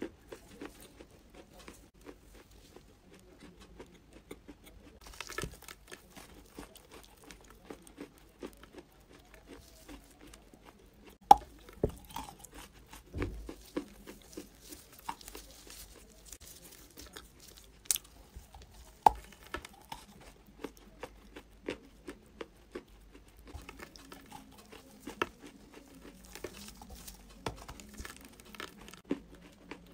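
Close-up bites into and chewing of a lump of reddish-brown clay: a run of crumbly crunches and sharp cracks, the loudest about eleven seconds in, with two more sharp cracks a few seconds later.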